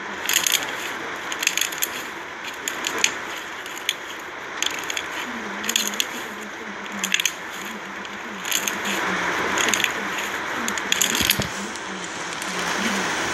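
Iceberg slime's dried, hardened crust crackling and crunching as it is pressed and broken into the soft slime beneath, in clusters of sharp crackles every second or so.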